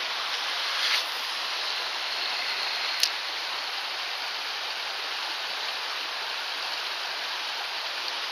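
Shallow rocky stream running over a riffle: a steady rushing of water, with one sharp click about three seconds in.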